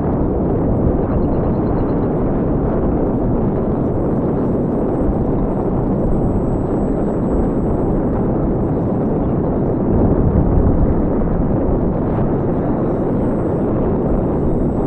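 Steady wind rushing and rumbling over a microphone, with no motor tone heard.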